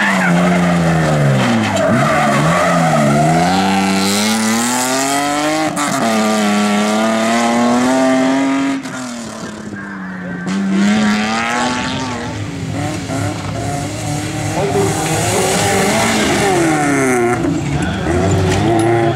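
Rally car engine at hard throttle, the revs repeatedly climbing and dropping as the driver lifts and changes gear. About halfway through it fades for a second or two, then revs hard again.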